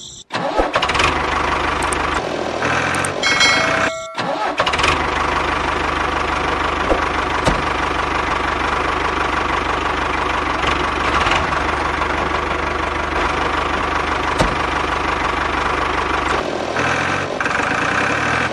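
A tractor engine starts and runs steadily, with a short dip about four seconds in.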